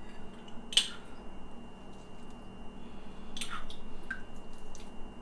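A little water trickling into a food-chopper bowl of peas and avocado, with a few light clicks and knocks of handling.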